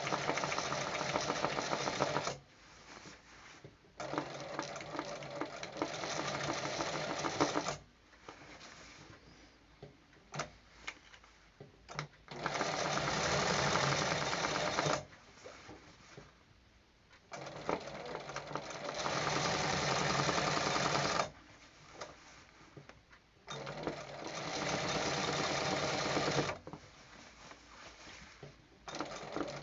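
Embroidery sewing machine stitching in short runs of two to four seconds, stopping and starting again about five times, as the design is guided by hand in free-motion (handle) embroidery. Light clicks sound in some of the pauses.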